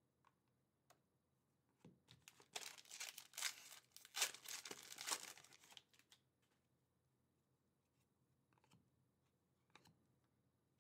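Foil trading-card pack wrapper being torn open and crinkled, a crackly rustle of about four seconds starting about two seconds in, followed by a few faint clicks of the cards being handled.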